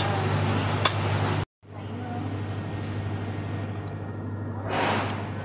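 Carp grilling on a bamboo skewer over charcoal: sizzling, with a few sharp crackling pops. After a brief break about a second and a half in, there is quieter outdoor background noise over a steady low hum, and a swelling whoosh near the end.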